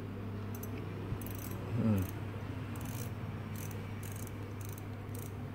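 Daiwa Exist 1025 spinning reel being cranked by hand: its rotor and gears give a faint, high chirring tick about once or twice a second, very quiet running.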